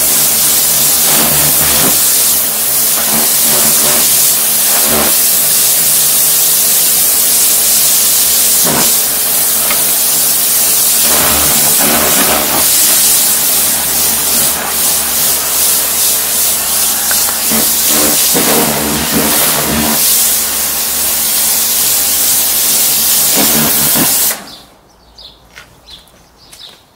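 Kärcher electric pressure washer running, with the steady hum of its pump motor under the loud hiss of the water jet spraying onto patio slabs. It cuts off suddenly near the end when the trigger is released.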